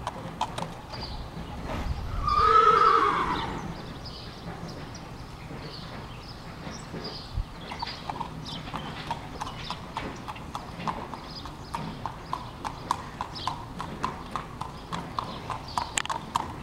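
Steady clip-clop of a thoroughbred gelding's hooves on pavement as he is led at a walk. About two seconds in, a horse whinnies once, the loudest sound here.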